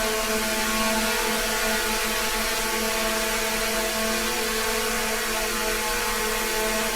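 A steady machine drone: an even, unchanging hum of several held tones over a constant hiss.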